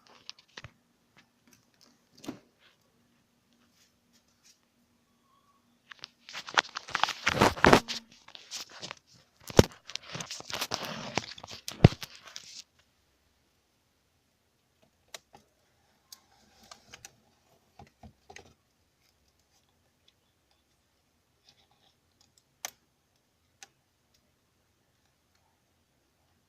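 Crinkling and rustling of plastic being handled for about six seconds, a dense crackle of fine clicks, with a few scattered small clicks and taps before and after.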